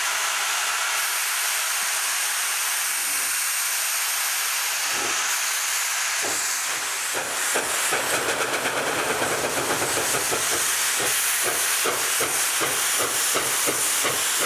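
2-8-0 steam locomotive No. 734 working upgrade toward the listener. A steady hiss runs throughout; about seven seconds in, its exhaust chuffs set in and grow louder, coming about three a second as it nears.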